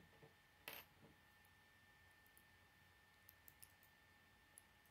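Faint clicks and light taps of plastic K'nex pieces being handled and fitted together, with the strongest click about three-quarters of a second in and a small cluster of ticks past the middle.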